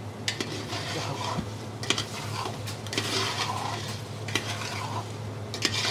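A long metal ladle scraping and clinking against a large aluminium pot as lamb shank pieces are stirred, with bursts of sizzling from the meat frying in oil.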